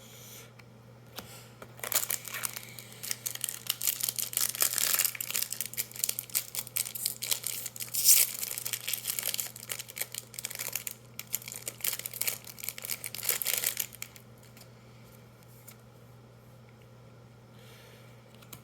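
Foil booster pack wrapper being torn open and crinkled, a run of crackling and tearing from about two seconds in until about fourteen seconds in, sharpest around eight seconds in.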